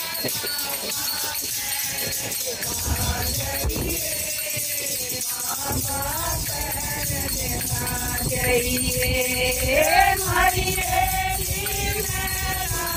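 A group of women singing a song together in long held notes, the tune climbing about ten seconds in, with clapping and a pair of small brass hand cymbals (manjira) jingling along in time.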